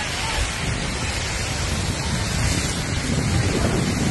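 Wildfire burning through pine trees: a steady rushing noise with low rumbling buffets of wind on the phone's microphone.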